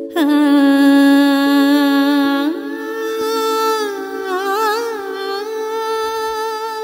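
A woman's voice singing a long wordless held note, sliding up to a higher note about two and a half seconds in and ornamenting it with a quick wavering of pitch, over a steady drone.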